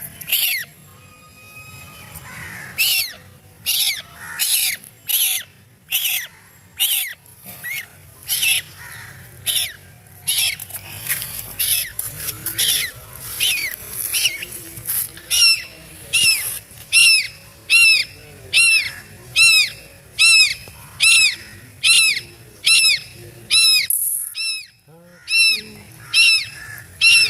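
Duckling peeping in distress: loud, short, high cheeps repeated over and over, about one and a half a second, the crying of a scared baby duck.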